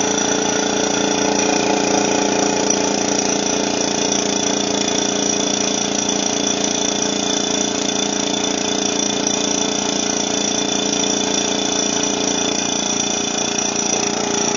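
Medi-Pump electric suction pump running with a steady, unchanging hum, pulling liquid through its tube into the glass suction jar.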